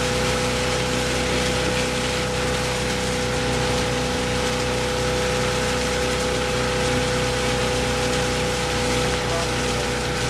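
Tow boat engine running steadily at speed, a constant drone, over the loud rush of water spray thrown up by a barefoot water skier's feet and the wake.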